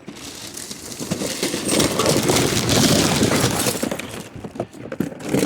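Rummaging through trash bags: a dense rustling and crinkling with hard items clinking and shifting, fading about four seconds in, then a few separate clicks.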